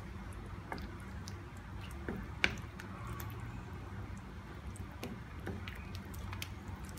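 Thick vegetable stew in a pan, with scattered wet pops and squelches over a low steady hum. The sharpest is a click about two and a half seconds in.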